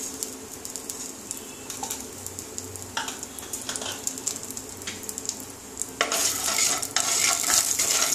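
Nigella seeds crackling and sizzling in a little hot mustard oil in a kadai, with scattered sharp pops. About six seconds in, a wooden spatula starts stirring the seeds around the pan, and the sizzle gets much louder with scraping.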